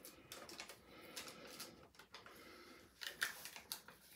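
Faint handling noises of small items: soft rustles and light clicks, with a couple of sharper ticks about three seconds in.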